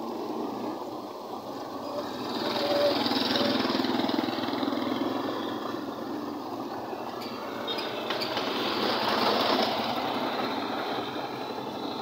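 Top-load automatic washing machine spin-draining in its rinse cycle: the tub spinning while the drain hose gushes soapy water onto concrete. A steady rushing that swells twice.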